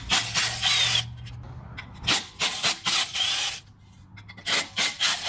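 Milwaukee FUEL cordless impact gun hammering in a series of short bursts, with a faint motor whine, as it loosens the clutch pressure-plate bolts on a BMW M62 V8's flywheel.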